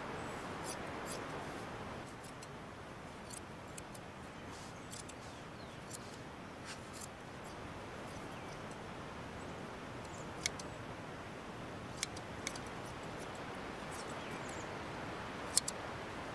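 Hand shears snipping through a sheep's fleece: irregular sharp clicks of the blades, the loudest near the end, over a steady background hiss.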